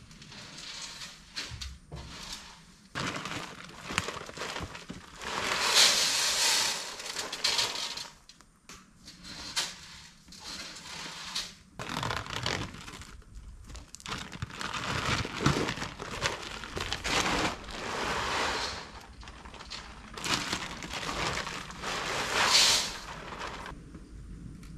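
Deer feed (sunflower seed, pellets and corn) being handled, mixed and poured into a metal deer feeder, with feed bags crinkling and rustling. It comes in irregular bursts, the loudest about six seconds in and again near the end.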